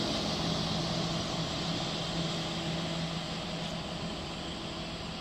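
Diesel railcar pulling away from a station, its engine running with a steady low drone that slowly fades as it moves off.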